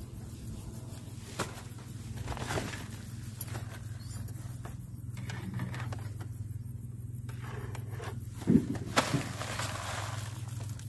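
Wire-mesh cage trap being handled and opened: light scraping and clicks of the mesh, with two sharp knocks about eight and a half seconds in, over a steady low hum.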